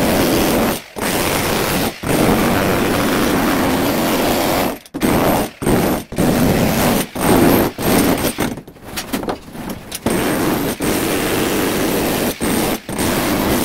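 Electric demolition hammer chiselling up a concrete floor screed, hammering loudly in long runs broken by short pauses as the trigger is let off, with a burst of quick stop-start strikes in the middle.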